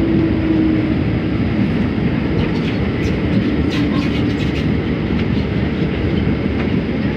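Cabin noise of a Scomi two-car monorail train running along its elevated beam: a steady low rumble from the rubber-tyred train, with a faint low hum near the start and again about halfway through, and a few light clicks in the middle.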